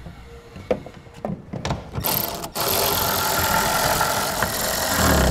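Cordless power ratchet spinning a socket to run down the taillight housing's mounting fastener: a steady motor-and-gear whine starting about two seconds in, with a brief break half a second later. Before it, a few light clicks and knocks as the plastic taillight housing is pressed into its opening.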